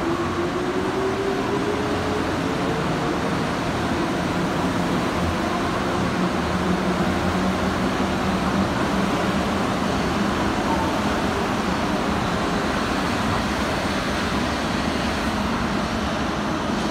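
Tokyo Monorail 1000 series train pulling away from the platform, its motors giving a rising whine in the first few seconds, over the steady running noise of the cars passing.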